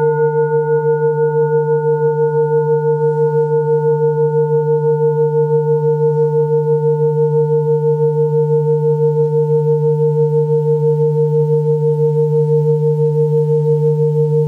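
Tibetan singing bowl ringing out after a mallet strike, a deep hum with a brighter ring above it that wavers evenly several times a second; its highest overtone fades away within the first couple of seconds.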